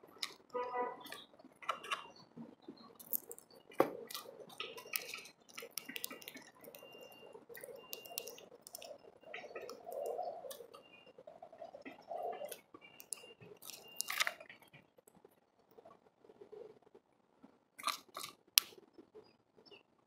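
Small birds pecking and cracking seed at a feeder: irregular sharp taps and crunches, with a few short high chirps.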